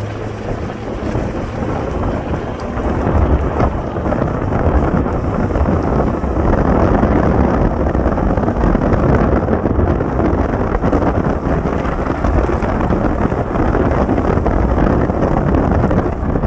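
Strong storm wind buffeting the microphone, with rain, a loud rushing noise that grows louder about three seconds in and then holds.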